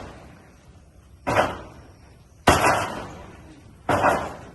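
Three heavy impacts about a second and a half apart, each a sudden hit that trails off in a rushing noise.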